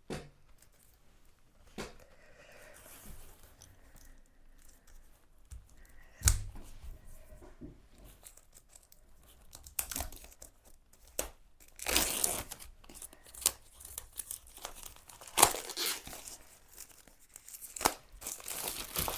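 Plastic shrink-wrap being torn and crinkled off a boxed book-and-card set, in short irregular crackling bursts that come thickest in the second half.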